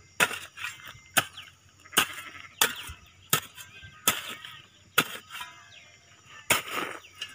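Short-handled hoe chopping and scraping into dry, gravelly red soil as earth is pulled into a planting hole around a coconut sapling. It is a repeated crunching strike, roughly one every two-thirds of a second, with a longer pause about five and a half seconds in.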